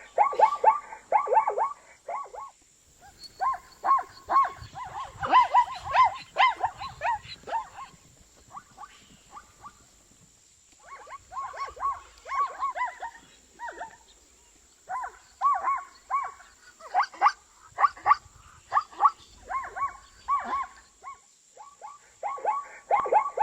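Zebra calling: bouts of quick, repeated yelping calls, several a second, with short pauses between bouts.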